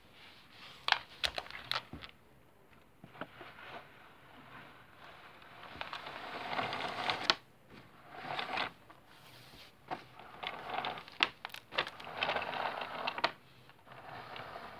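Paper model train cars rustling and scraping along a wooden floor, in irregular stretches of crinkling with scattered sharp clicks.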